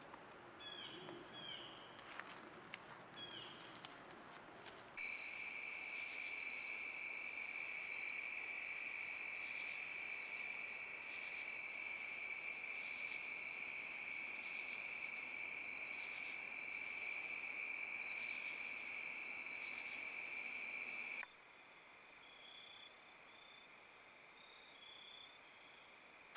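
Steady night chorus of crickets and other insects, two continuous trilling pitches that start abruptly about five seconds in and cut off about 21 seconds in, leaving a fainter insect hum. A few short bird chirps come before it.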